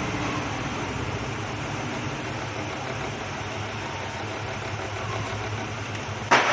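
A steady low mechanical hum with background noise, and one sharp click or knock near the end.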